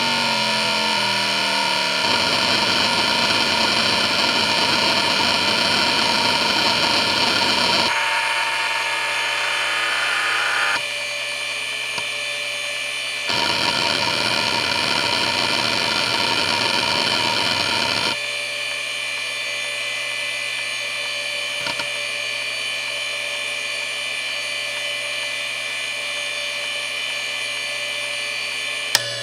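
Seagate Barracuda 9LP ST39173W 7,200 rpm ball-bearing SCSI hard drive under a seek benchmark, a healthy drive: a loud, dense chatter of the heads seeking over a steady high spindle whine, easing off about eleven seconds in and coming back for several seconds more. About eighteen seconds in the seeking stops, leaving the drive idling with its whine, and a sharp click sounds near the end.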